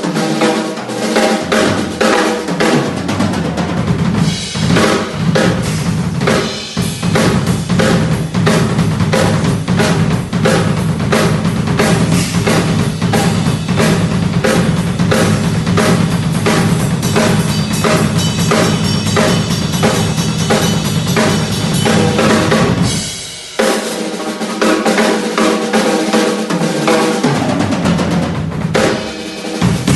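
Pearl Reference Pure drum kit with a Pearl Reference snare played hard: rapid snare and bass drum strokes with fills, stopping briefly about 23 seconds in before starting again.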